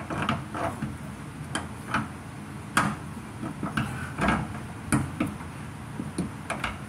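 Irregular clicks and knocks of a coilover's metal parts being handled and seated at the rear suspension mount, about one to two a second, the sharpest about three and five seconds in.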